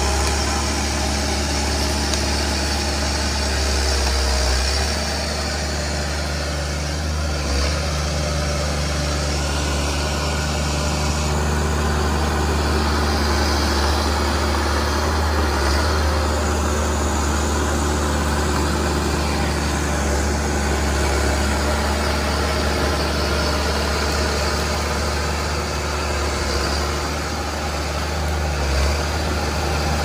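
John Deere 650G crawler dozer's diesel engine running steadily as the machine pushes its blade through brush and soil. A single thump comes near the end.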